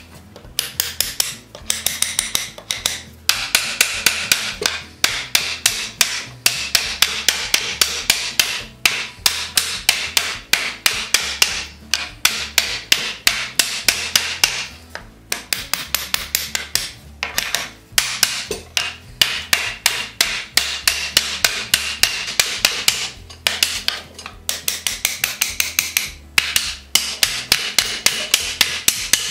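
A steel ball-peen hammer tapping rapidly on a new wooden felloe, driving it down onto the spoke tenons of a buggy wheel. The sharp strikes come about four a second in runs, with short pauses between them.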